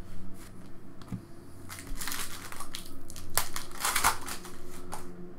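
Foil trading-card pack crinkling and tearing open in the hands, in rustling bursts about two seconds in and again from about three to five seconds in, loudest near four seconds. A faint steady hum sits underneath.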